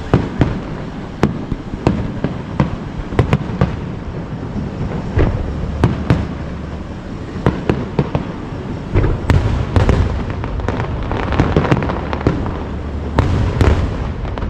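Aerial fireworks display: a rapid, irregular series of sharp bangs from shells bursting, over a continuous rumble and crackle that thickens about two thirds of the way through.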